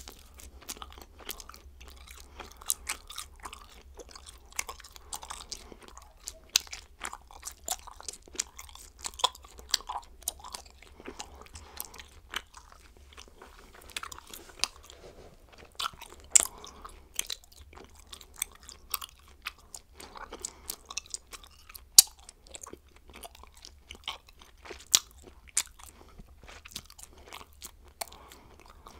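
A woman chewing bubblegum: an irregular run of clicks and smacks, a few much louder than the rest.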